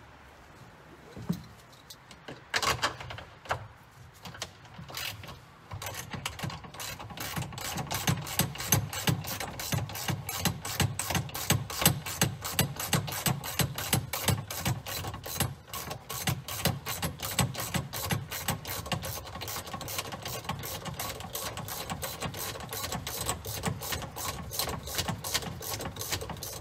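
Hand ratchet wrench clicking in a quick, even rhythm, about four clicks a second, as a nut is backed off a long mounting stud of a hydraulic steering helm; a few separate knocks come before the ratcheting starts.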